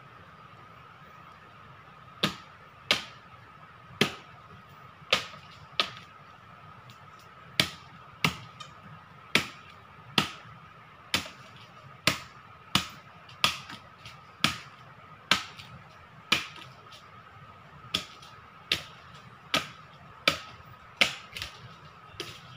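A machete (bolo) hacking into a tree trunk: about two dozen sharp chops, spaced roughly a second apart, beginning about two seconds in. The blows are cutting into the trunk to open up a wild bee nest for its honey.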